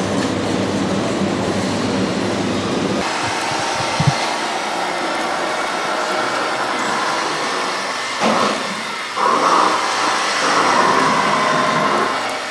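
Radio-controlled model construction machines running. A steady mechanical noise gives way about three seconds in to quieter machine sounds with a single thump. From about eight seconds on come the whining pitches of small electric motors, starting and stopping.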